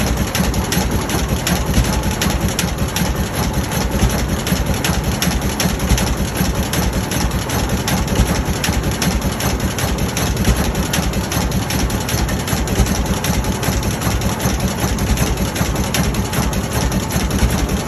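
Advance-Rumely OilPull Type E's big two-cylinder engine running steadily, with an even, rapid beat of firing strokes.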